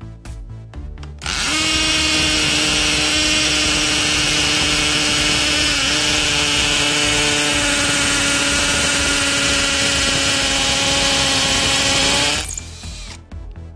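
Cordless hammer drill boring into a concrete wall. The motor starts about a second in and runs at a steady whine over a dense grinding noise, dips briefly in pitch midway under load, and stops near the end.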